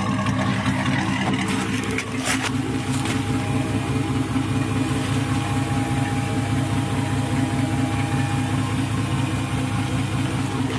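Dodge Dakota's 4.7-litre V8 idling steadily through a 2.5-inch straight-pipe exhaust with no muffler, heard close to the tailpipe and from underneath the truck.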